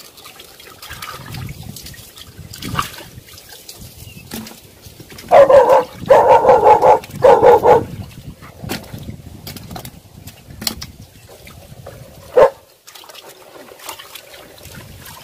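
A dog barks several times in quick succession about a third of the way in, and once more later. Beneath it, water sloshes and splashes as hands sort live fish in a tub of water.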